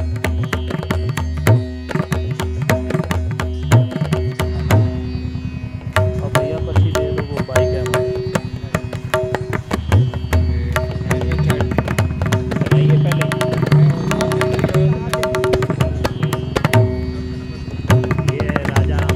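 Background music in a South Asian classical style: tabla drumming a fast rhythm over a steady held drone.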